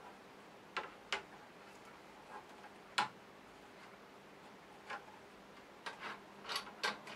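Scattered light clicks and knocks of an aluminium table plate being handled and seated in an aluminium-extrusion 3D printer frame. Two taps come about a second in, the sharpest about three seconds in, and a quick cluster near the end.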